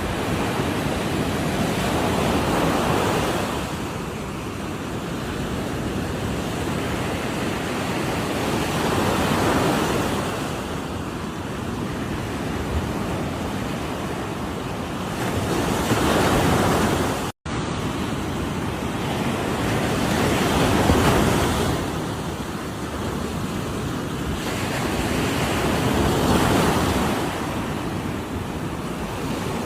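Ocean waves crashing on a shore: a continuous surf roar that swells with each breaking wave about every five or six seconds. A momentary break in the sound comes just past halfway.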